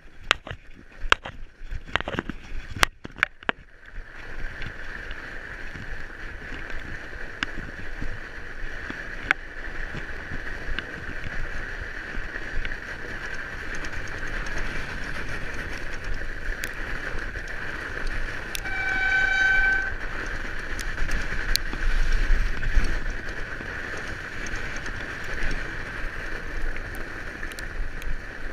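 Fat-tyre bike ridden over a packed snow trail: a steady hiss of the wide tyres on snow, with sharp knocks and rattles over the first few seconds and a brief pitched squeal lasting about a second, two-thirds of the way through.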